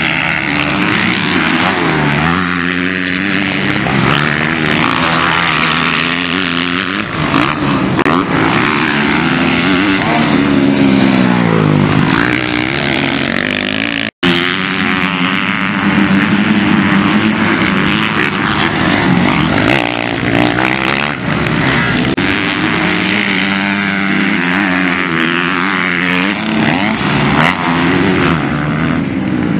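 Motocross bikes racing around a dirt track, with several engines revving up and down as the riders accelerate and back off through corners and jumps. The sound drops out for an instant about halfway through.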